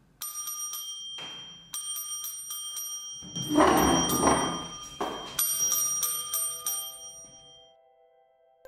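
A small metal bell rung in quick repeated strikes, each ring carrying several high clear tones. About three and a half seconds in, a loud, dull burst of noise about a second long breaks in, and then the bell rings on in another quick run.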